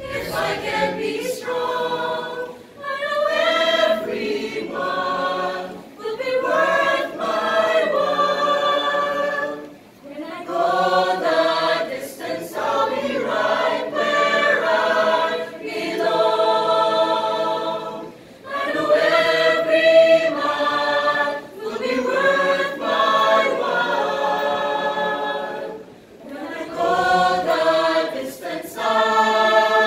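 Mixed-voice choir singing a cappella, in sung phrases of a few seconds separated by brief breaths.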